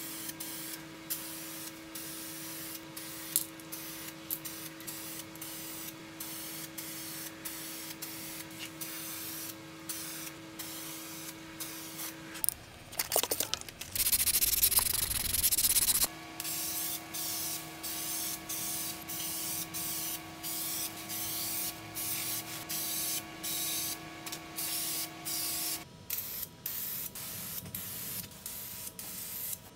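Aerosol spray paint can hissing in short bursts, about one a second, with a longer, louder stretch of noise about halfway through. A faint steady hum runs underneath until near the end.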